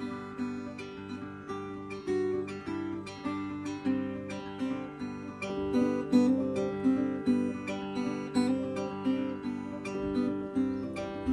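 Sunburst acoustic guitar in open G tuning playing an instrumental passage: a steady run of plucked notes ringing over one another, with no singing.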